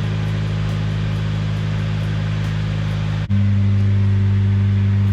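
Car engine running at a steady, constant pitch. About three seconds in it breaks off for an instant and resumes louder, with a different note.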